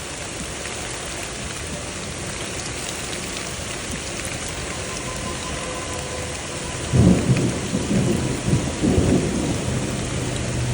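Steady rain falling, then about two-thirds of the way through a sudden clap of thunder that rolls on as a low rumble, louder than the rain.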